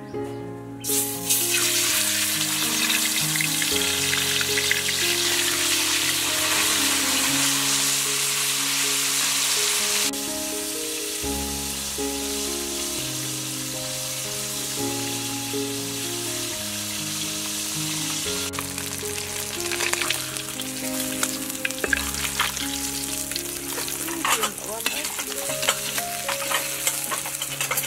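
Snakehead fish frying in hot oil in a wok: a loud sizzle starts suddenly about a second in and eases about ten seconds in. In the last third a metal spatula scrapes and clicks against the wok as the fish is turned.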